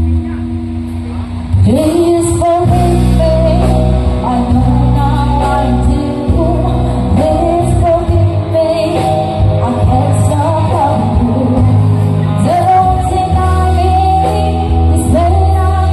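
Live rock band playing a slow ballad: a female voice singing over electric guitar, bass guitar and drum kit, with a heavy, booming low end. The singing comes in loudly about one and a half seconds in.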